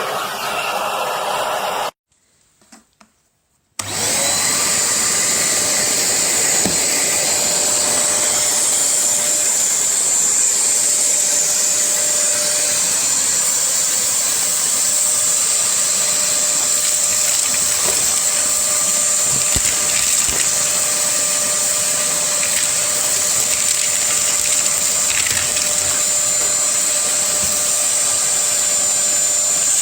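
Black+Decker wet/dry vacuum cleaner motor running with a steady whine. It drops to near silence about two seconds in, then comes back up and runs steadily again.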